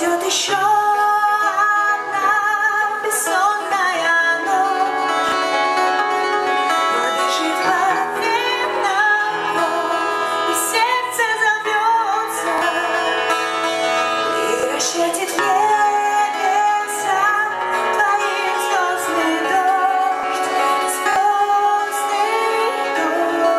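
Live band performing a song: a woman singing a wavering, sustained melody over plucked string accompaniment.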